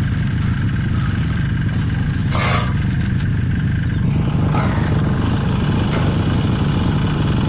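An engine running steadily, with a short hissing rush about two and a half seconds in.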